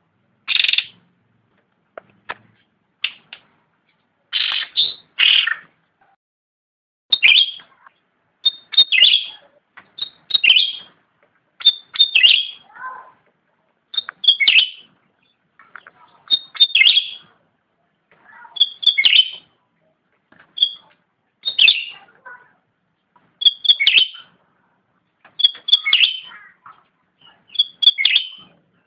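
Cucak rante songbird singing short, repeated phrases of sharp high notes, about one phrase every two seconds with brief gaps between.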